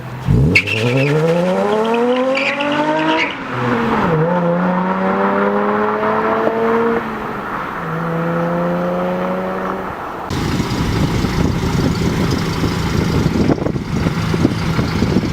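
Car engine revving up in a quick rising sweep, then running at steady pitches for several seconds, turning to a rougher, noisier rumble from about ten seconds in.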